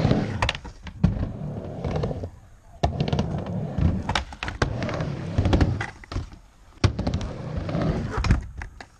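Skateboard wheels rolling across a plywood mini ramp: a rumble that swells and fades with each pass, with sharp clacks as the board and trucks hit the ramp and coping.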